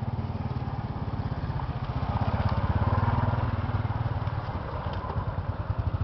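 A motor vehicle's engine running with a rapid pulsing rumble, growing louder about two to three seconds in, then easing off.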